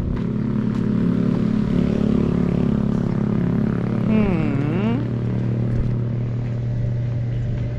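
A motor engine running steadily at a constant low hum, with no change in speed. About four seconds in, a brief voice-like sound slides down in pitch and back up.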